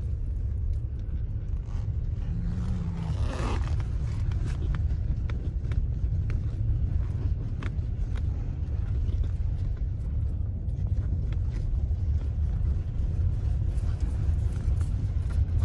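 A car driving at low speed, heard from inside the cabin: a steady low rumble of engine and road noise, with faint scattered ticks and crackles over it.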